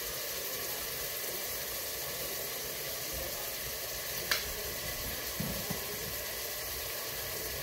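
Food sizzling steadily in a steaming pot on the stove. A single light click about four seconds in, then a couple of soft knocks about a second later.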